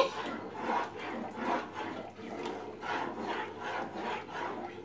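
Spoon stirring thick vegetable cream soup in an enamel pot, rubbing against the pot in a steady rhythm of about three strokes a second.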